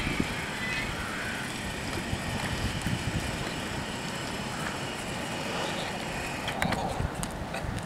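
Level crossing just after its bells stop: a high ringing tone dies away in the first second, leaving a steady low rumble while the barrier arms rise. A few light clicks near the end from footsteps and a dog's paws on the wooden crossing planks.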